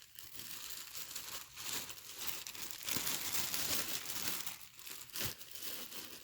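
Plastic bag crinkling and rustling as skeins of yarn are handled and moved about, busiest about three seconds in, stopping abruptly near the end.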